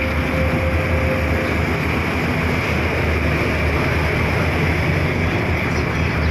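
Vehicle ferry's engine running steadily under way, a constant low rumble with water and air noise over it.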